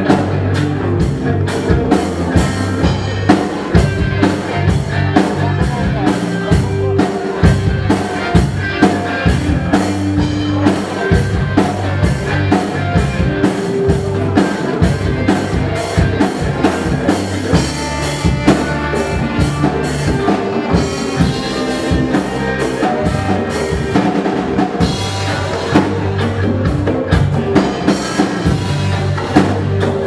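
Live rock band with a steady drum-kit beat, congas, electric guitar, bass guitar and saxophone.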